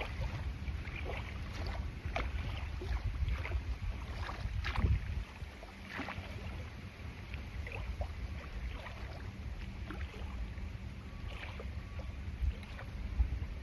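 Steady low outdoor rumble with many short, sharp clicks and smacks of someone chewing food close to the microphone.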